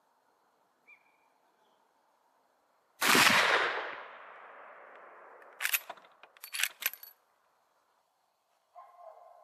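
A single rifle shot from a .38-55 black powder cartridge in a lever-action Winchester Model 1894 replica: one loud report that dies away over about a second. A few seconds later come several sharp metallic clacks as the lever is worked to eject the spent case and chamber the next round.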